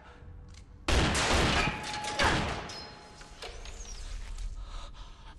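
Film action sound effects of gunfire in a large, echoing room: a sudden loud blast about a second in that rings out and fades, followed by fainter sharp knocks.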